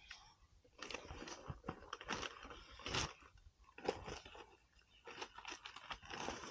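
Hands packing whole raw sardines tightly into a plastic cool box: faint, irregular wet handling sounds of fish sliding and pressing against each other and the plastic, with a couple of sharper knocks about three and four seconds in.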